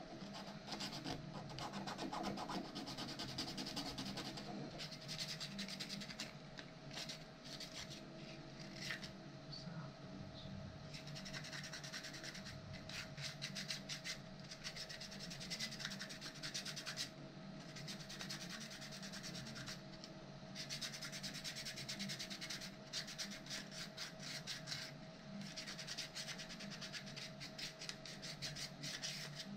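Rapid rubbing strokes of hand abrasive finishing on a 3D-printed plastic robot part, in runs broken by short pauses.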